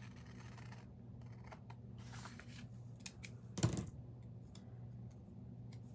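Quiet handling of paper stickers on a journal page: light rustles and small clicks over a low steady hum, with one short, louder rustle or knock a little past the middle.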